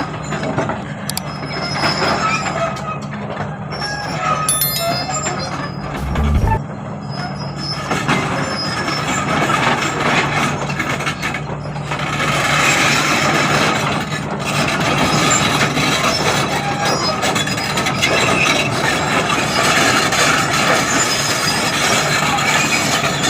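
Excavator's diesel engine running steadily, with metallic clatter and scraping from the machine at work that grows louder and denser about halfway through.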